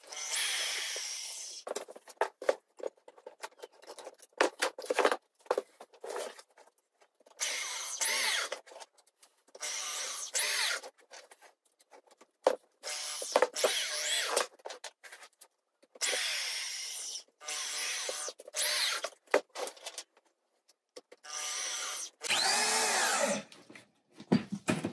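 Corded power drill driving screws into wooden blocking, run in a dozen or so short bursts of about a second each, with small knocks from handling the work between them.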